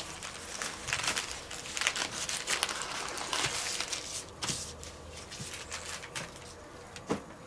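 Baking paper crinkling and rustling as hands fold and press it around a puff-pastry roll on a wooden board, with a few light knocks.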